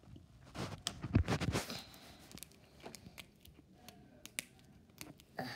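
Hands working at a plastic toy capsule and its clear plastic wrapping: a spell of rustling and knocking about a second in, then scattered sharp plastic clicks.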